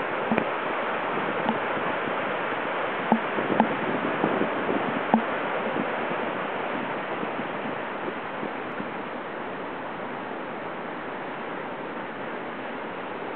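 Large typhoon swell breaking on the beach: a steady, continuous rush of surf that eases slightly after about six seconds, with a few small sharp knocks in the first five seconds.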